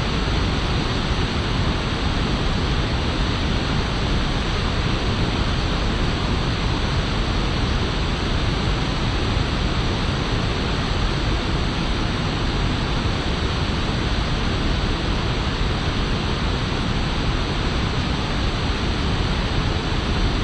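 A fast river rushing over rocks: a steady, unbroken roar of water.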